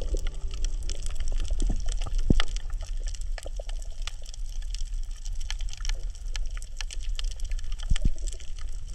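Underwater reef ambience: a dense, irregular crackle of small clicks and pops over a steady low rumble of moving water, with a louder knock about two seconds in and another near the end. The crackle is the reef's 'michi-michi' sound, which the uploader has heard is the coral breathing.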